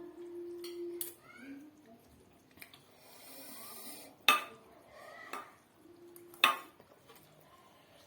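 Eating utensils knocking against a bowl of noodles: a light clink about a second in, then two sharp clinks about two seconds apart.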